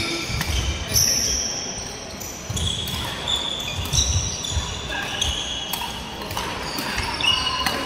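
Badminton doubles rally: sharp racket strikes on the shuttlecock, with short high shoe squeaks and thudding footsteps as the players move on the court.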